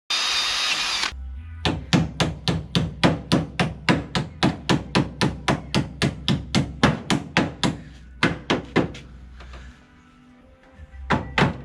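Hammer beating the car's body sheet metal around a steel pipe brace: a steady run of sharp blows, about three a second. The blows pause near the end and then start again.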